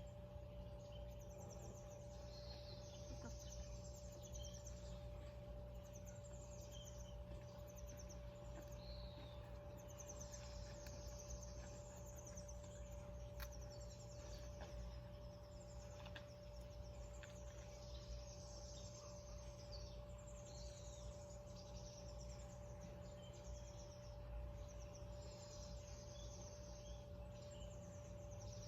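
Faint outdoor ambience of birds chirping and trilling again and again, over a steady low hum.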